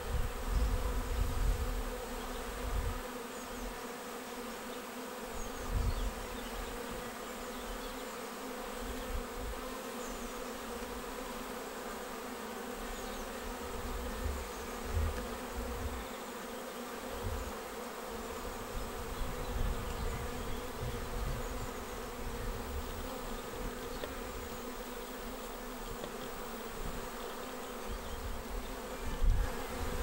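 Honeybee swarm buzzing, a steady many-toned hum as the bees crowd over a bait hive's entrance holes and file into the swarm trap. A low rumble comes and goes underneath.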